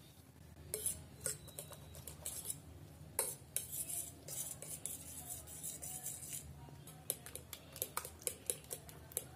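A spoon stirring and beating raw eggs with chopped onion and herbs in a plastic bowl, knocking irregularly against the bowl's sides and bottom with many short clicks and a wet squelch of the mixture.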